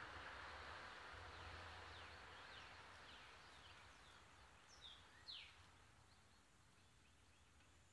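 Near silence: faint background with a few short, falling bird chirps, the loudest pair about five seconds in.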